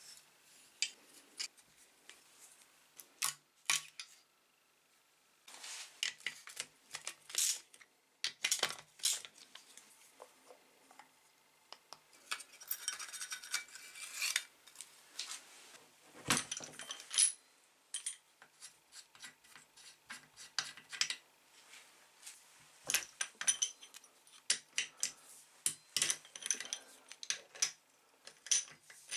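Hand tools and metal parts of a Briggs & Stratton Quantum engine clinking, clattering and scraping as the engine is taken apart. The clicks come irregularly, with a longer stretch of rattling about halfway through and a sharp clack just after it.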